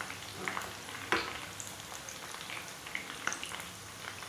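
Methi vadas (fenugreek fritters) frying in hot oil in a pan: a steady sizzle dotted with small crackles and pops, with one sharper click about a second in.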